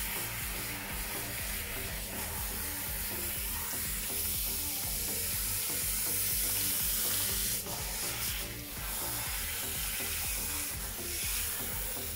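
Handheld shower head spraying water onto a standard poodle's soaked, shampooed coat: a steady hiss of spray with water running off, as the second shampoo is rinsed out.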